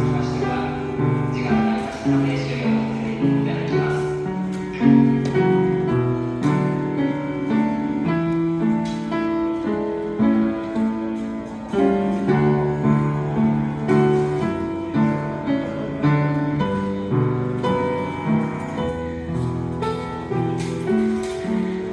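Upright piano played by a child: a steady run of melody notes over bass notes and chords.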